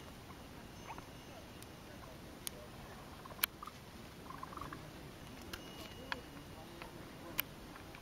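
Faint background hiss with a few sharp, separate clicks, the loudest about three and a half seconds in.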